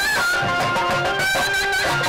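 Instrumental folk dance music: a high lead melody held and sliding between notes over a steady drum beat.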